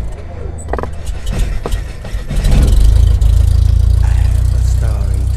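Logo-reveal intro sound effect: a string of sharp crackling clicks, then a deep rumble that swells about two seconds in and holds.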